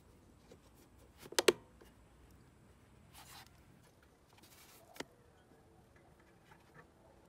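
A plastic cover door on a scooter's fuel pump snapping shut with a sharp double click, followed by faint rustling of hands and parts and one lighter click as a fuel hose is fitted to the gas tank.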